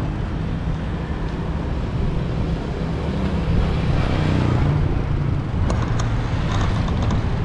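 A motor vehicle engine running close by with road noise, rising in pitch a little past the middle. A few light clicks sound near the end.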